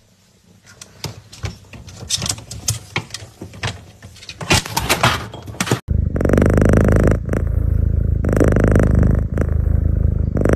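Small clicks and rustles as a cat rummages among items on a fridge shelf. About six seconds in, a loud, steady cat purr starts close to the microphone and runs in three long stretches with brief breaks between breaths.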